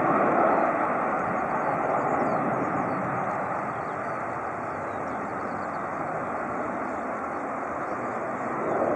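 Boeing 737's jet engines at takeoff thrust as the airliner climbs out, a steady roar that slowly fades, then swells again near the end.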